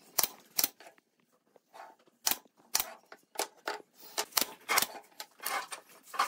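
Pneumatic brad nailer firing two sharp shots under half a second apart into the corner of a wooden frame, followed by a series of knocks and clatters of wooden strips being handled and set down on the wooden workbench.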